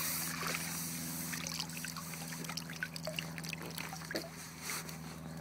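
Lake water trickling and dripping off a landing net as it is lifted out with a carp inside, with small irregular splashes over a steady low hum.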